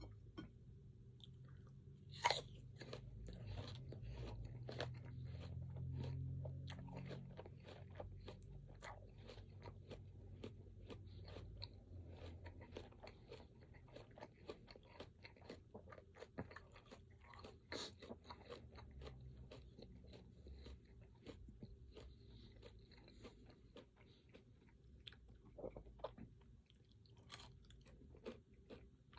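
Close-miked eating: biting and chewing crunchy fruit and pecans, many small crunches with a few sharper bites, the loudest about two seconds in.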